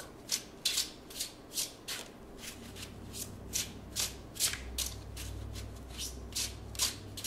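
A deck of tarot cards being shuffled by hand: a steady run of short card-slapping strokes, about three a second.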